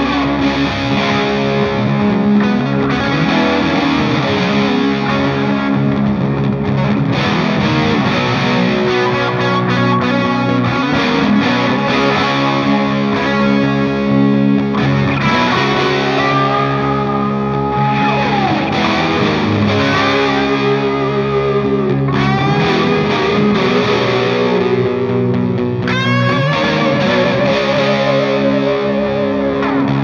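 Distorted electric guitar riffs from a Gibson Les Paul played through a Laney LA30BL amplifier into a Friedman cabinet with Celestion Creamback 65 speakers, one track boosted with a BCC TI Boost pedal and one straight from the amp. In the second half, notes are bent and held with vibrato.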